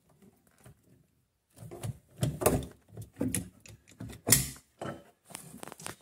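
A hand PEX crimping tool being worked on a copper crimp ring around PEX tubing: after a quiet first second and a half, a run of irregular clicks, clunks and rustles, the loudest about four seconds in.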